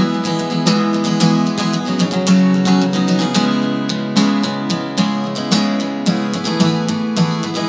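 Gibson acoustic guitar strummed in a steady rhythm, sustained chords ringing between the strokes, with no singing.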